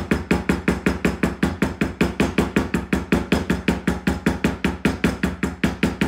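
Poly maul striking a metal leather stamp into leather, a steady run of sharp knocks at about four strikes a second.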